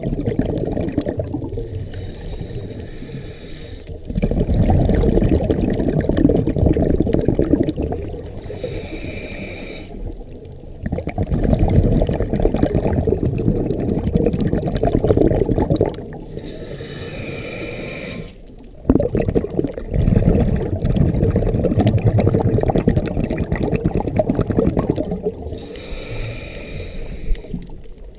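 Scuba diver breathing through a regulator underwater: four slow breaths, each a short hissing inhale followed by a long rumble of exhaled bubbles.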